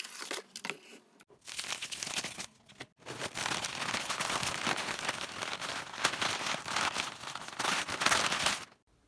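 Packing material rustling and crinkling as an item is pulled out and unwrapped by hand: a short stretch, a brief pause, then a longer stretch of several seconds that stops suddenly.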